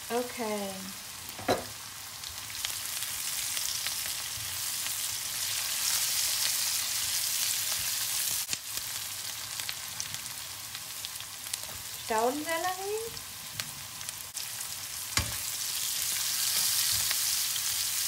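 Sliced onions and spices frying in coconut oil in a wok, a steady sizzle, with two sharp knocks. Chopped celery goes into the pan near the end and is stirred, and the sizzle grows louder.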